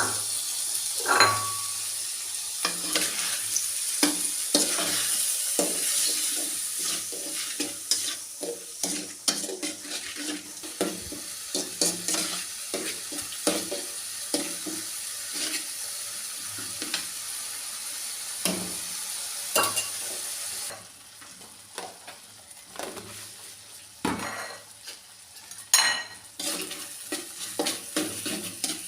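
A spatula stirring and scraping in a frying pan, with irregular knocks against the pan, while food sizzles steadily. The sizzle drops quieter about two-thirds of the way through.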